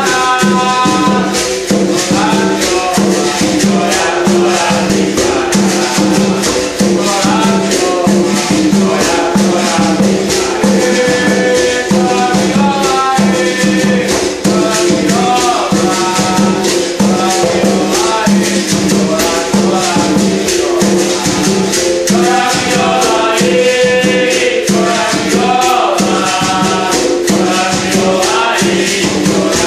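Berimbau music with a caxixi shaker rattling in a fast, even rhythm, an atabaque hand drum, and men singing a song over the steady low notes of the bow.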